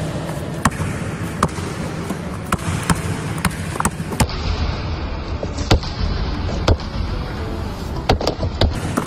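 A basketball being dribbled on a hard court floor: irregular thumps about once a second, with a few quicker bounces near the end, over a steady background hiss.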